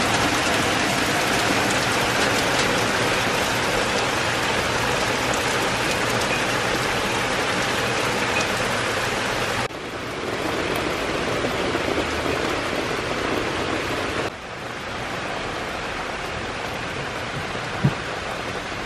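Heavy rain falling on a wooden deck and trees, a steady hiss that drops sharply in level twice, about halfway through and again about three-quarters through. One short tap near the end.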